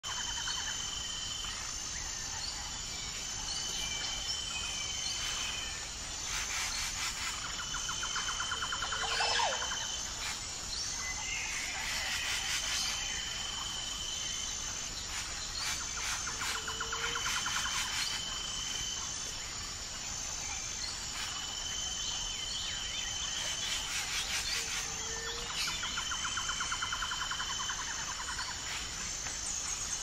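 Outdoor ambience of birds and insects chirping: a steady high chirping with a higher pulsing trill over it, and a buzzy trilling call that comes back about every eight seconds, the same pattern repeating.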